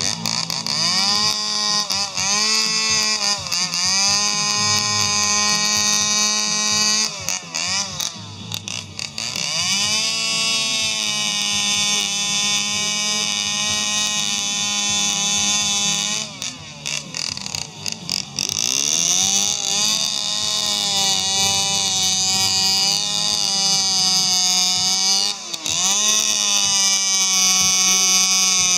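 Two-stroke chainsaw running at high revs while cutting into a wooden log, its pitch dipping and rising again as the throttle and load change. It drops back and eases off twice, about a quarter of the way through and again just past the middle, then revs up again.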